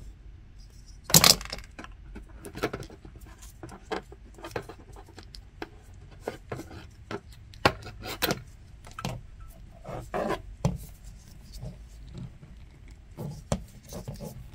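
Stripping the sheath off a length of 14-3 Romex (NM) cable by hand: scattered clicks, scrapes and rustles as the plastic jacket is slit and peeled back from the copper conductors, with one sharp clack about a second in.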